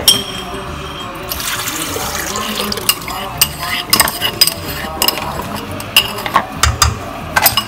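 Warm milk poured into a stainless steel stand-mixer bowl: a steady splashing fill. From about three seconds in come many sharp clicks and knocks.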